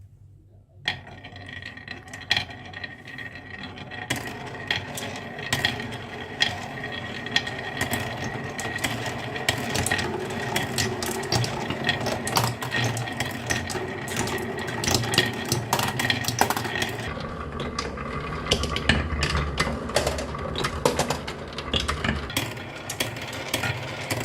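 A small battery toy motor whines steadily amid many quick clicks and rattles of marbles rolling and knocking along a marble run. The sound starts about a second in, and a deeper hum joins about two-thirds of the way through for around five seconds.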